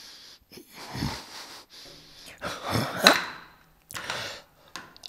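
A man groaning and breathing heavily in distress, with wheezing, moaning breaths and a sharp gasp about three seconds in.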